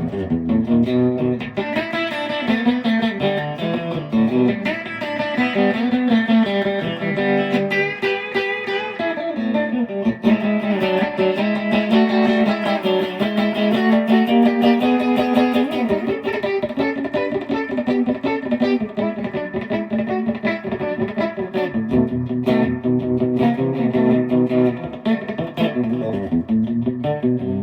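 Mid-'60s Magnatone Tornado played through a mid-'60s Danelectro DM25 amplifier, a continuous run of notes and chords with no pause.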